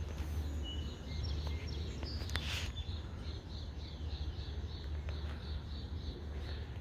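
A bird chirping: a few short high notes, then a quick run of repeated chirps, about three or four a second, over a steady low hum. A brief rustling burst about two and a half seconds in.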